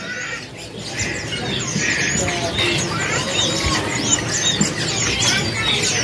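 Many small caged songbirds chirping and twittering at once, a dense tangle of quick high chirps that grows louder over the first second, over a low background murmur.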